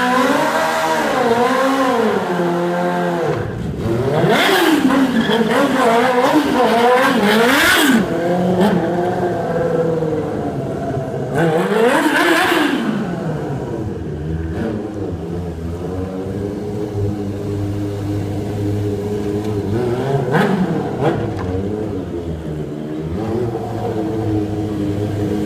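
Sport motorcycle engine revving up and down continuously during stunt riding, its pitch rising and falling. Two stretches of loud tyre squeal come in, one about four seconds in lasting several seconds, and another about eleven seconds in.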